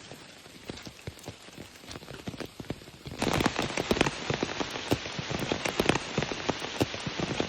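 Rain falling, with many separate drops heard against a steady hiss; it turns abruptly louder and denser about three seconds in.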